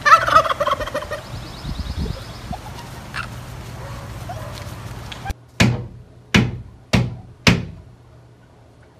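Turkeys gobbling and calling, loudest right at the start. After a sudden break about five seconds in come four sharp, loud sounds, about two-thirds of a second apart.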